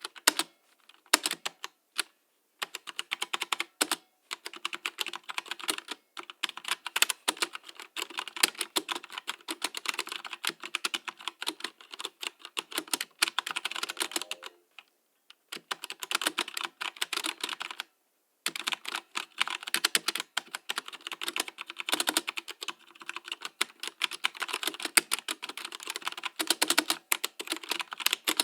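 Fast typing on a mechanical keyboard: rapid runs of sharp key clicks in bursts, with short pauses about 2, 4, 15 and 18 seconds in.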